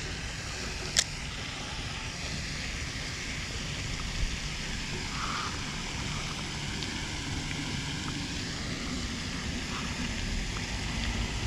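Steady outdoor wind noise, with one sharp click about a second in.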